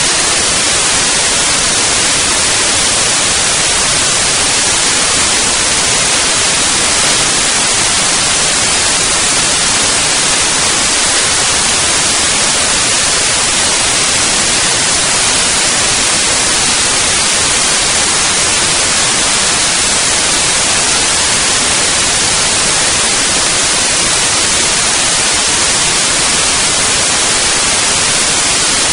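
A loud, steady hiss like white noise, unchanging throughout, with no splashes, voices or other events standing out.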